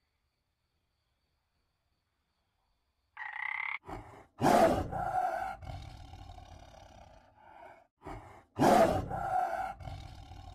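A frog's short croak about three seconds in, then a tiger roaring twice, each roar starting with a loud burst and tailing off over about three seconds.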